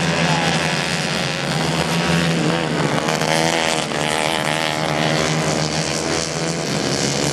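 Several racing kart engines running hard at high revs as a group of karts goes past. Their pitch rises and falls as the drivers ease off and accelerate again.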